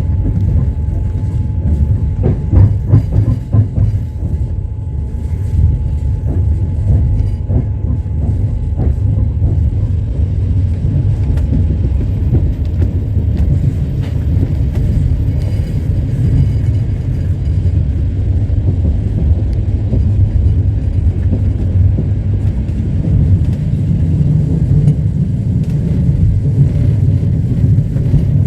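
Passenger train running along the track: a steady low rumble of wheels on rails, with a run of wheel clacks over rail joints a few seconds in and scattered knocks after. A faint thin steady whine stops about twelve seconds in.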